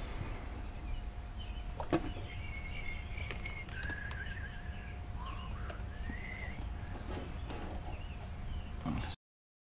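Small clicks and knocks of hands handling hoses and fittings in a car's engine bay, over a steady low hum, with a sharp click about two seconds in. A few faint, wavering high chirps come and go in the middle, and the sound cuts out abruptly near the end.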